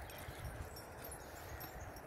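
Faint, uneven low rumble of wind on the microphone in open air, with no distinct calls or knocks.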